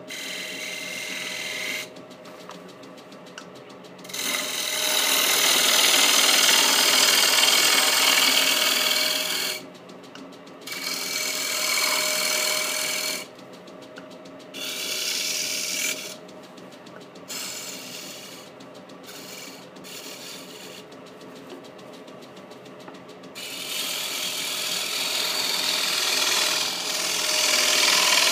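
Wood lathe running with a steady motor hum while a turning tool cuts the spinning wooden disc in a series of rasping, scraping passes. The passes last one to five seconds each, with short pauses between. The longest and loudest passes come about four to nine seconds in and again near the end.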